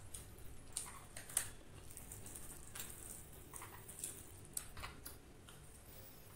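Faint, scattered crunchy clicks and crackles of crisp fried chicken coating being torn by hand and chewed.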